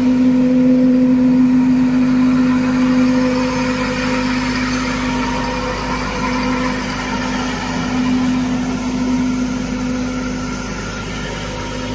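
Compact tractor engine running with the fan of a rear-mounted 200-litre air-blast mist sprayer blowing, a steady hum with a constant tone and a rush of air.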